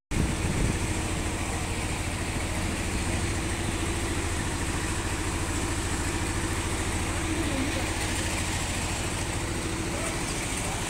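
Steady rushing of the Kunhar, a fast rocky mountain river, with a low, steady idling-engine hum underneath.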